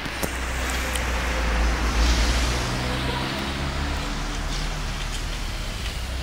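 Street traffic: a car passes close by, loudest about two seconds in, its engine note climbing as it accelerates away, over a steady low rumble of traffic.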